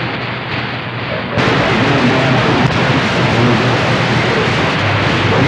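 CB radio receiver on 27.025 MHz (channel 6) putting out loud static hiss, with faint, garbled voices of distant stations buried in it. About a second in, the hiss turns suddenly brighter and a little louder.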